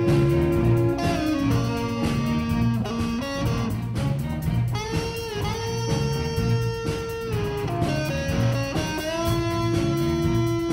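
High school band playing, with an electric guitar carrying a lead melody of long held notes that slide into each new pitch, over a steady beat from the band.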